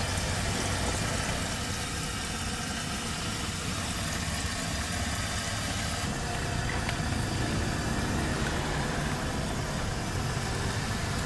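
Hot oil sizzling steadily in a wok as vegetable fritters deep-fry, over a steady low rumble.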